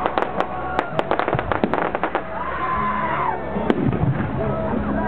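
Fireworks going off: a rapid, irregular run of sharp bangs and crackles from shells and fountains, over music played with the display.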